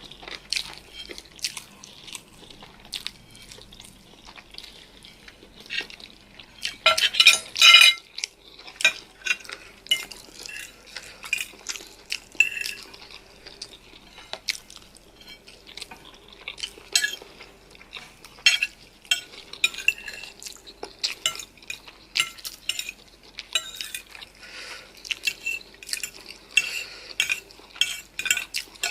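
Eating utensils clinking and scraping against a dish as spicy noodles are stirred and eaten, with many short taps and a louder rattling cluster about seven seconds in.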